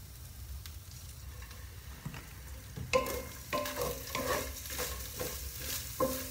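Minced meat, onions and garlic frying in a pan. The sizzling is faint at first. From about halfway through, a wooden spoon stirs and scrapes the pan in strokes about every half second.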